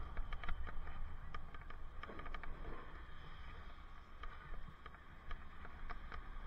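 Bicycle ride heard through a helmet-mounted camera: a steady low rumble of wind and road noise, with many scattered light clicks and rattles at irregular spacing.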